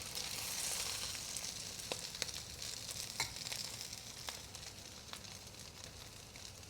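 Radish cake sizzling in hot oil in a pan, with scattered sharp taps and scrapes of a spatula stirring it, slowly getting quieter.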